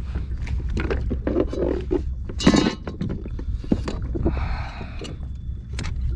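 Knocks, clicks and rustling on a kayak as a freshly caught fluke is handled and laid on a measuring board. A louder scrape or slap comes about two and a half seconds in.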